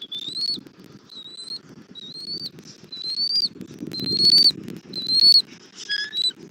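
Bald eagle calling: a series of six high, thin whistled notes, each sliding slightly upward, about one a second, then a different shorter call near the end. A low, steady rustle of wind runs beneath.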